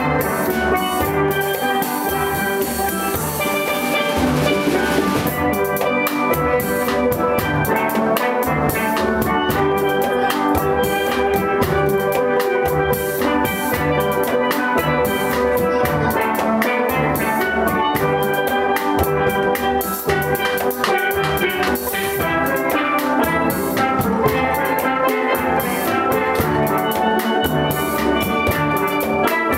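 Steelband playing: many steel pans struck together in a steady rhythm, with drums keeping the beat.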